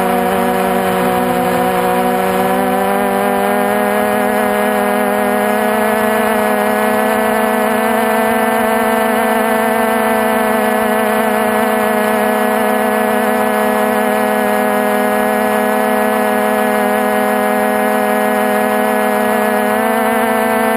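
Multirotor drone's electric motors and propellers giving a loud, steady whine, its pitch edging up over the first few seconds and shifting again near the end.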